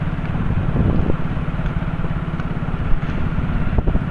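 Motorcycle engine running steadily on the move, with its even low pulsing over road noise.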